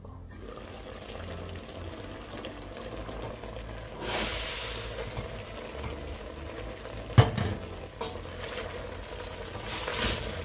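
Chicken simmering in a little water in a stainless steel pot, uncovered and stirred with a wooden spoon: bubbling and hissing, with louder bursts of hiss about four seconds in and again near the end, and a single sharp knock about seven seconds in.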